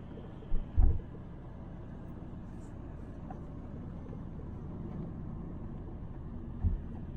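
Taxi car driving, a steady low road rumble, with a few sharp low thumps about half a second to a second in and again near the end.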